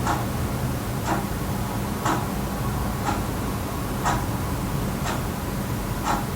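Wall clock ticking at an even one tick a second, over a steady background hiss and low hum.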